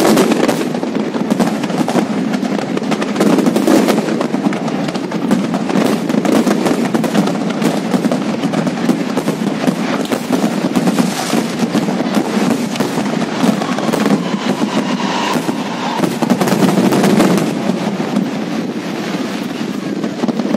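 Aerial fireworks in a finale barrage: shell bursts and crackling go off in a rapid, unbroken stream, many reports a second.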